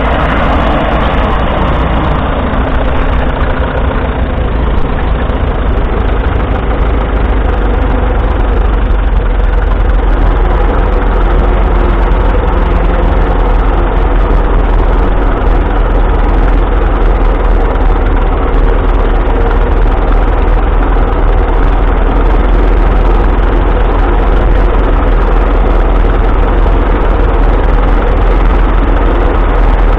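1941 Fordson Model N tractor's 4.4-litre four-cylinder engine, running on TVO (tractor vaporising oil), heard close up and running steadily. Its note shifts a little in the first few seconds, then holds even.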